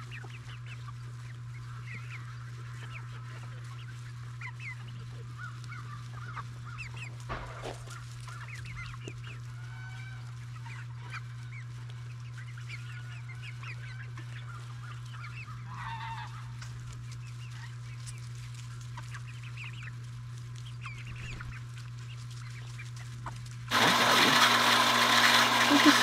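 A flock of backyard hens and other poultry making many short, soft clucks and calls over a steady low hum. Near the end this gives way abruptly to a much louder, steady rushing noise.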